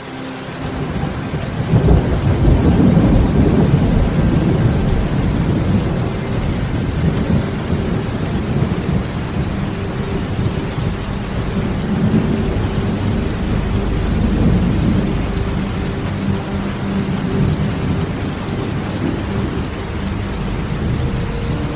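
Thunderstorm: steady rain with a long roll of thunder that swells about two seconds in and rumbles on, slowly easing, through the rest.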